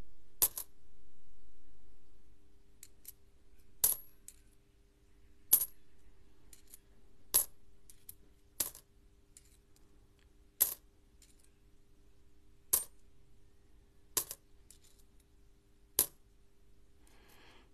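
Australian five-cent coins clicking against one another as they are thumbed off a stack one at a time: a sharp metallic click every one and a half to two seconds, with softer ticks between.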